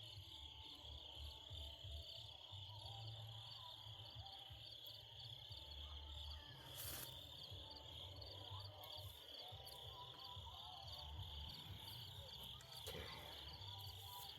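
Faint, steady chorus of insects, a continuous high-pitched trill, over a low rumble, with a single sharp click about seven seconds in.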